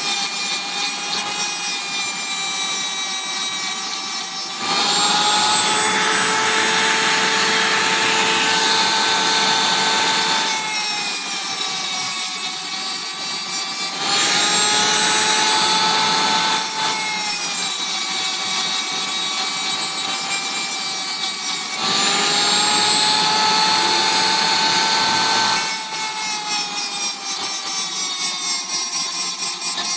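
Dremel rotary tool running with a steady whine, grinding metal off a typewriter type bar to relieve the spot where it rubs and binds. Three spells of heavier rasping come as the bit bears on the metal, each lasting several seconds, and the whine's pitch dips slightly while it cuts.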